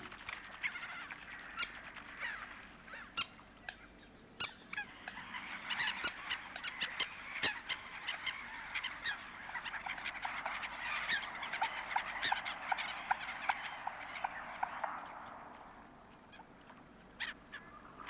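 A mixed flock of lake waterbirds calling in many short, sharp notes over a noisy wash of sound. The din is densest through the middle and thins near the end. The birds are crowding and squabbling over food offered to them.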